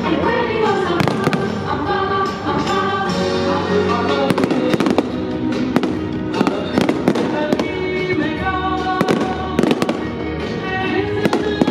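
Fireworks shells bursting in a rapid, irregular series of bangs over the show's loud accompanying music.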